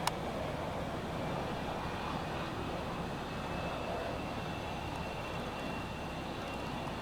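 Cessna 172 Skyhawk's propeller engine running steadily at low power after landing. A sharp click comes right at the start.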